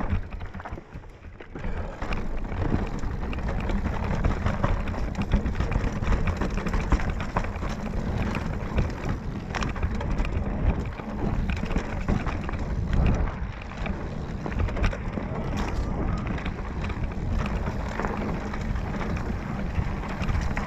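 Mountain bike riding down a rough dirt trail: tyres running over dirt and roots, with the bike's frame and chain clattering in quick knocks and a steady low rumble of wind and vibration on the bike-mounted camera. It goes briefly quieter about a second in.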